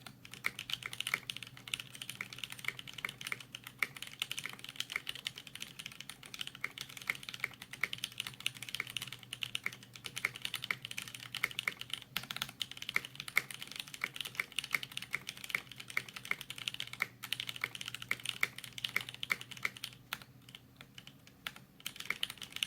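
Fast, continuous typing on a mechanical keyboard: stock C³Equalz x TKC Banana Split linear switches under clear ABS keycaps on a TheKey.Company Portico, with lubed screw-in stabilizers. The keystrokes thin out near the end.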